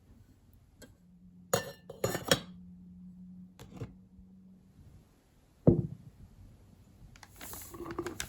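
Glass and kitchenware clinking as they are handled and set down: a few sharp clinks, then a single dull knock a little after halfway, with rustling near the end.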